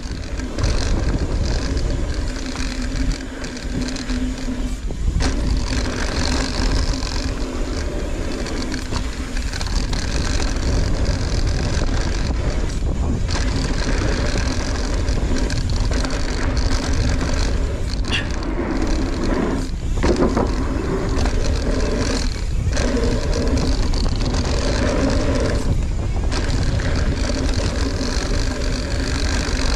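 Mountain bike riding a dirt trail: tyres rolling and the bike rattling over the ground, with wind rushing over the microphone. The noise is steady, with brief dips several times.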